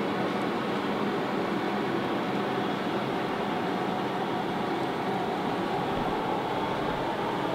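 Steady, unchanging mechanical whirring noise with a faint hum running through it.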